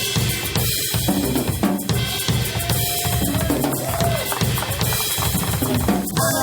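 A live band playing, led by a drum kit beat of bass drum and snare with rimshots, in a steady rhythm with other instruments underneath.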